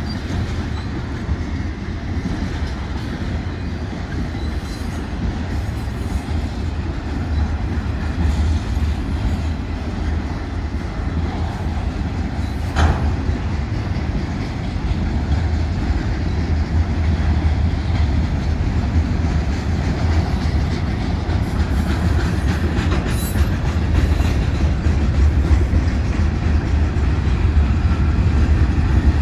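Freight cars of a long manifest freight train rolling steadily past: a continuous rumble of steel wheels on the rails, growing a little louder toward the end, with one sharp clank about halfway through.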